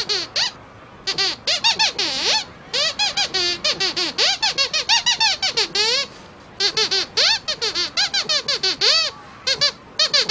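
A puppet character's squeaky voice: a long, rapid run of high-pitched squeaks, rising and falling like gabbled speech, as it answers a question and gives directions.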